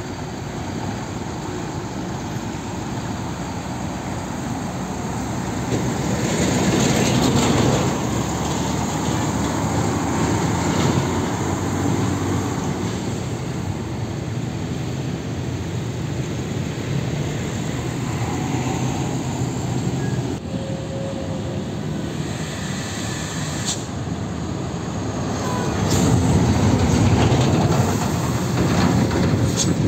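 Heavy diesel trucks driving past on a road over steady traffic noise. The engine rumble swells about six seconds in and again near the end as trucks pass close.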